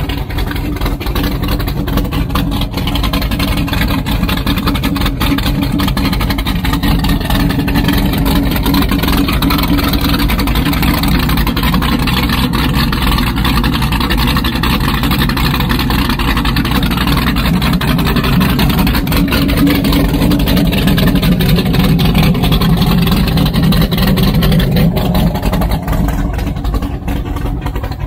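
Twin rebuilt engines of a 38 Donzi ZRC powerboat running on the trailer, exhausting through the stern drives with a garden hose supplying cooling water. A steady low rumble that swells somewhat in the second half.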